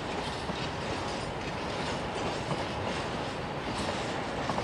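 A freight train of covered grain hopper wagons rolling past, a steady rumble of steel wheels on the rails with a few faint clicks over the rail joints.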